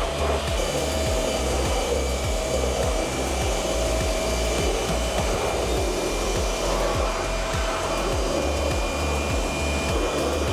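Steady rushing hiss of air or spray, like a blower drying an engine, under background music with a regular bass beat.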